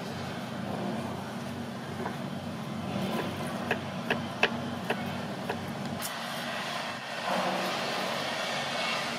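Broad-bladed kitchen knife slicing garlic cloves on a wooden chopping board: irregular sharp taps of the blade on the board, mostly in the middle of the stretch. Underneath runs a steady low hum, and a rushing noise rises about seven seconds in.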